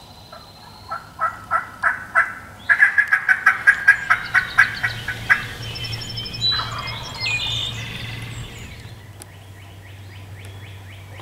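Turkey calling: a slow series of about five yelps, then a faster, louder run of notes for about two and a half seconds. Fainter, higher bird chirps follow.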